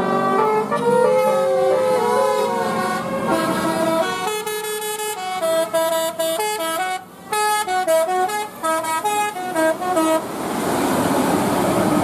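Tour bus 'telolet' multi-tone air horn playing a quick tune of short stepped notes. About ten seconds in it gives way to a rush of engine and road noise as the bus goes past.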